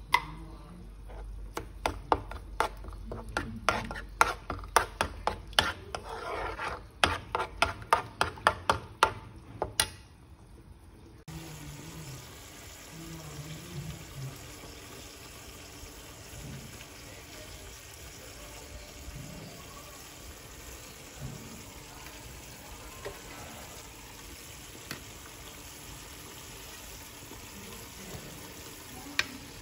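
A metal spoon clicking and scraping against a metal pan while stirring a sauce, two to three sharp strokes a second. About eleven seconds in this gives way to a steady hiss from a large pot of pork-bone broth simmering.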